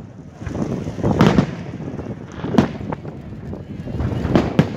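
Aerial firework shells bursting overhead in a string of bangs, loudest about a second in and again near the end, with a rumbling crackle between the reports.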